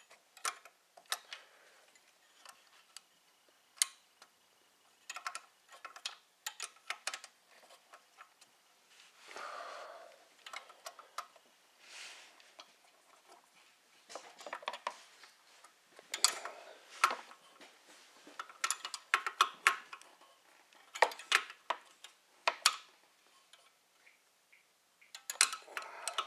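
Hand tools and small metal parts clicking and clinking on a workbench during work on a snowblower carburetor, in irregular short clicks with a few brief scraping and rustling noises between them.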